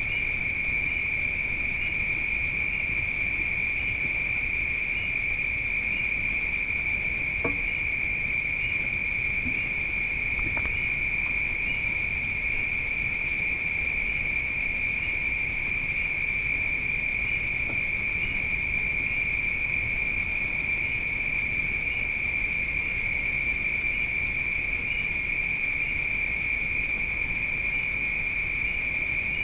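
Night insects, crickets, trilling in a steady, high-pitched, unbroken chorus. A couple of faint knocks sound about a third of the way in.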